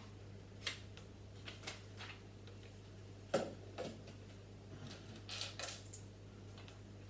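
Plastic Lego pieces being handled and pressed together: a scattering of small clicks and light clatter, the loudest about three and a half seconds in, over a faint low steady hum.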